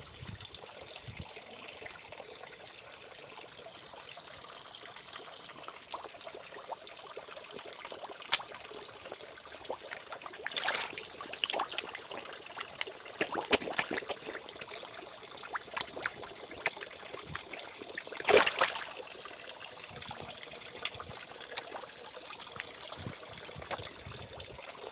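Pond water trickling steadily, with small splashes and slurps at the surface as koi take food pellets; a few louder splashes stand out, the loudest about three-quarters of the way through.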